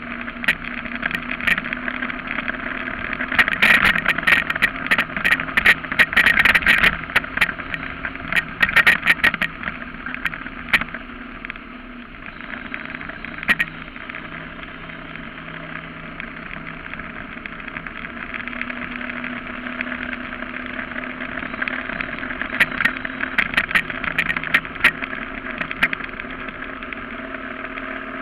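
Surface-drive mud motor pushing a jon boat at speed: a steady engine drone under rushing water and wind. Sharp knocks and rattles come thick from about three to eleven seconds in and again near the end.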